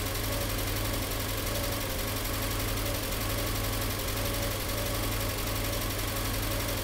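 Freshly rebuilt flat-four boxer engine of a 1998 Subaru Legacy GT-B idling steadily.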